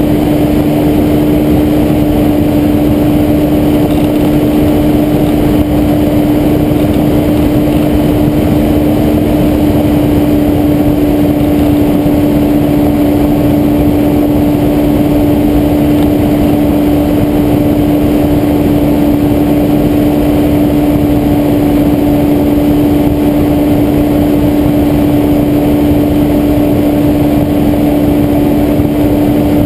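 Weight-shift microlight trike's engine and propeller droning steadily at a constant pitch in cruising flight, loud and unchanging throughout.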